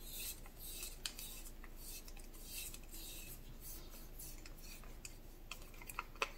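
Wooden craft stick stirring acrylic pouring paint in a plastic cup: faint scraping with small clicks as the stick knocks against the cup wall, and a couple of sharper taps near the end.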